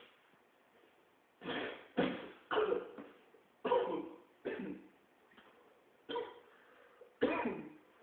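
A man coughing repeatedly from inhaling smoke: a run of about seven coughs that starts about a second and a half in.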